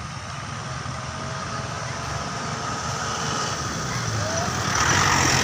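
Tour bus diesel engine running with a steady low hum, growing louder as the bus draws near, with a rush of engine and road noise about five seconds in as it comes close.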